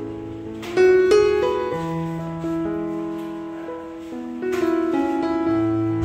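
Background music: a piano playing held notes and chords, with louder chords struck about a second in and again about two-thirds of the way through.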